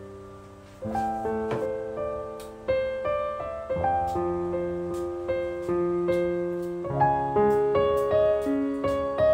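Background piano music: a slow, gentle piece of single notes and chords, each struck and left to ring.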